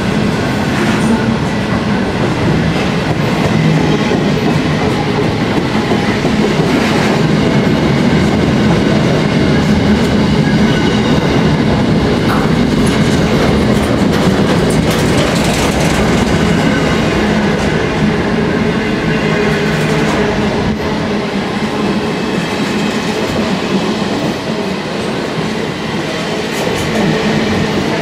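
Container wagons of an intermodal freight train rolling past at close range: a steady loud rumble of steel wheels on the rails, with clicks and clacks as the wheels cross rail joints.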